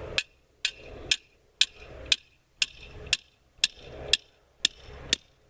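Hammer striking the top of a 5/8-inch round-stock steel tripod leg, driving it into the ground: eleven sharp, evenly paced metallic blows, about two a second, each with a short ring.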